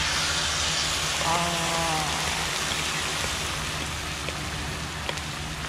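Beaten eggs with vegetables poured onto a hot flat-top griddle, sizzling at once as they hit the metal. The sizzle is loudest at first and eases off gradually.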